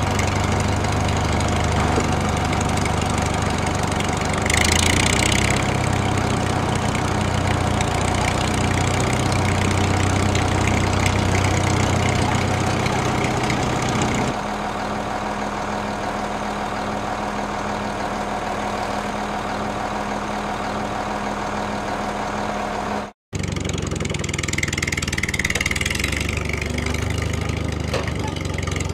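Tractor engine running steadily at a low, even beat. The sound changes abruptly about halfway through and cuts out for an instant near the end. There is a short hiss about five seconds in.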